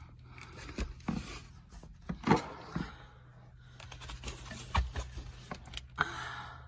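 Irregular knocks, clicks and scrapes of an aircraft's hat shelf and interior trim panels being handled and fitted into place, over a steady low hum.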